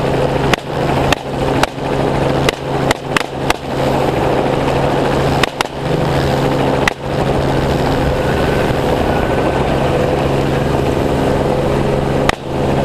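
Helicopter running steadily in flight, with about ten semi-automatic rifle shots fired from it at feral hogs: a quick string of shots in the first few seconds, two more a few seconds later, and a last one near the end.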